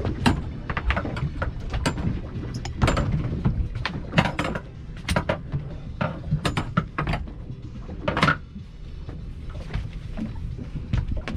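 Irregular knocks, thuds and clatter on a fishing boat's deck over a steady low rumble.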